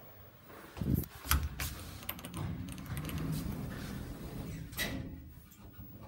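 Elevator's sliding car doors closing, driven by the door operator: knocks and clicks about a second in, a steady low run through the middle, and a sharp clack near the end as the doors shut.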